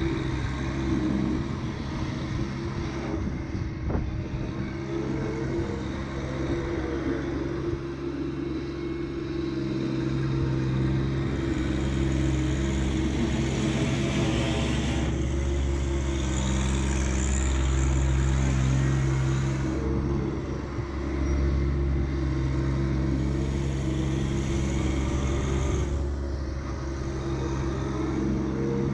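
John Deere 1025R subcompact tractor's three-cylinder diesel engine running steadily under working load, its pitch shifting a little now and then. A single sharp knock about four seconds in.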